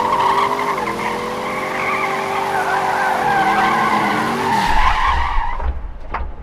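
Car tyres squealing in a long skid, with a steady pitched tone underneath that drops slightly twice; a low rumble comes in near the end.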